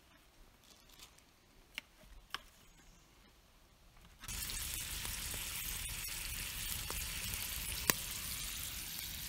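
Bacon sizzling in a cast-iron pan over a campfire, starting suddenly about four seconds in after a few faint clicks; one sharp pop near the end.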